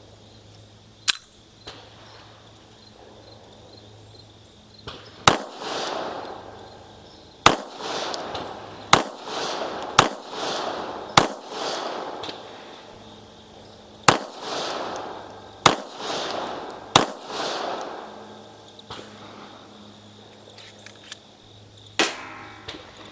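Bulgarian Makarov 9×18 mm pistol firing a slow string of about ten single shots, one to four seconds apart. Each sharp crack is followed by a short echo.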